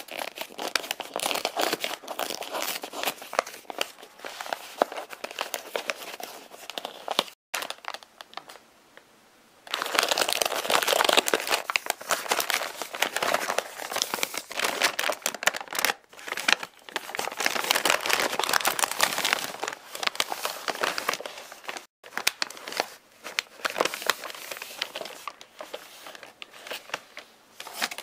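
Paper and cardboard packaging rustling and crinkling as a parcel is opened by hand, with some tearing. The handling comes in spells, with a quieter pause about eight seconds in.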